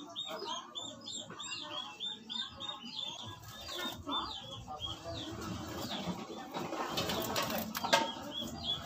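A small bird chirping in a fast run of short high notes, about five a second, changing to quick downward-slurred notes partway through. A few sharp clicks sound near the end, the loudest about a second before the close.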